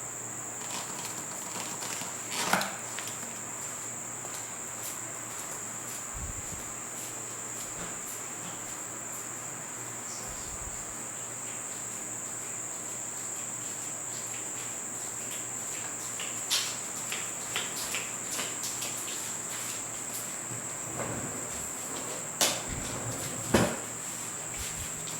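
Steady high-pitched insect chorus, with scattered faint clicks and a few louder knocks, one a couple of seconds in and several near the end.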